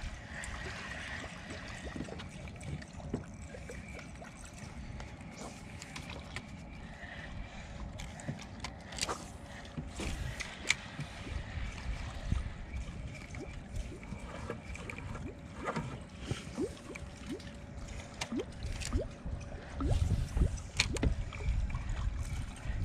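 Water gurgling and lapping against a small boat, over a steady low rumble, with scattered clicks and knocks, a few louder ones in the second half.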